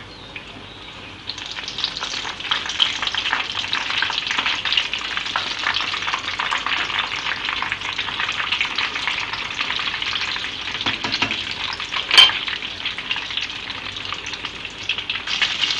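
Breaded, cheese-filled pizza bites frying in hot oil, a dense crackling sizzle that swells up about a second in. A single sharp click stands out about three-quarters of the way through.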